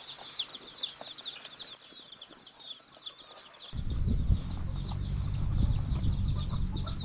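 Several chicks peeping constantly in rapid, high, downward-sliding chirps. About halfway through, a low steady hum starts abruptly and becomes the loudest sound.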